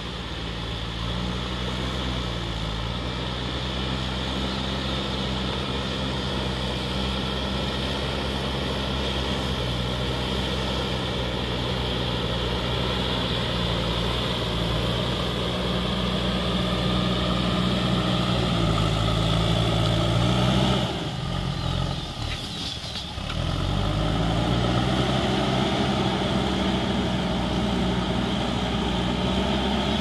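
JCB backhoe loader's diesel engine running steadily under load while it pushes dirt with its front bucket. About two-thirds of the way in, the revs drop for a couple of seconds, then climb back up.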